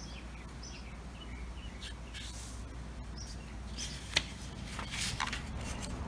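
Felt-tip marker squeaking on construction paper in short strokes, with a sharp tap about four seconds in and paper rustling as the sheet is shifted near the end, over a low steady hum.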